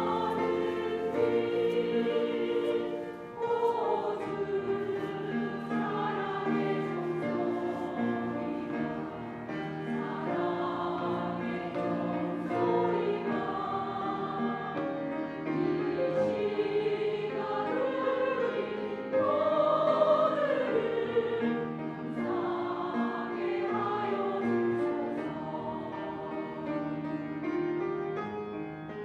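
A women's choir singing a hymn, voices held and gliding from note to note.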